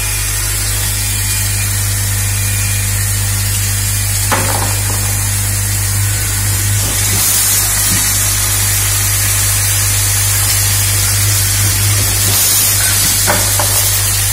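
Automatic screw-nut assembly machine running: a steady low hum under an even hiss, with a sharp click about four seconds in and two more near the end.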